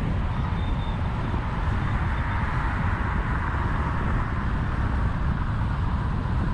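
A car driving steadily at about 60 km/h, with a continuous rumbling road noise from the tyres and the air rushing past.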